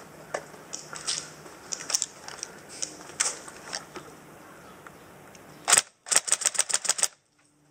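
Airsoft electric rifle firing close by: one sharp shot, then a rapid full-auto burst of about ten shots in a second that cuts off suddenly. Before it come light scattered clicks and rustles of gear and steps on gravel.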